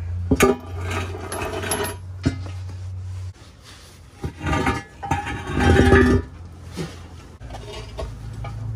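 Metal-on-metal clanks and clinks of tools and heavy parts being handled, several separate strikes with a short ring, loudest about six seconds in. A steady low hum runs under the first few seconds and then stops.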